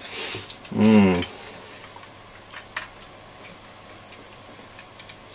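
A short hiss, then a loud hummed grunt with a falling pitch about a second in, followed by scattered light clicks of small parts and tools being handled.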